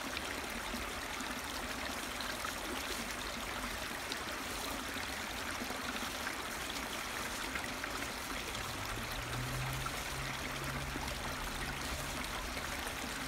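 A woodland stream running: a steady, unbroken rush of flowing water.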